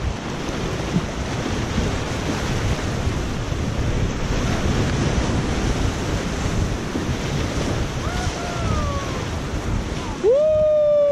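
Whitewater river rapids rushing steadily, heard from a kayak in the middle of them, with wind noise on the microphone. Near the end a person calls out twice, the second a loud held shout.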